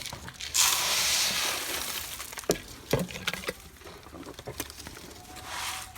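Bird seed being poured, a loud hissing rattle of grains for about two seconds, followed by scattered clicks and a softer pour near the end.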